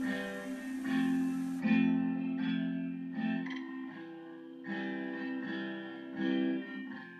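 Guitar playing a slow intro, plucked notes and chords ringing out over low bass notes, with no singing yet.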